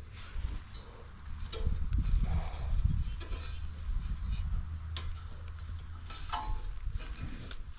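Steady high-pitched chirring of crickets, over low rumbling and a few light clicks and knocks from handling of the mower parts.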